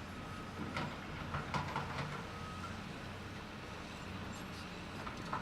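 Cat 325C excavator's diesel engine running steadily, with a few sharp knocks from the sheepsfoot compaction wheel bouncing on the ground: about a second in, a cluster around two seconds in, and one near the end.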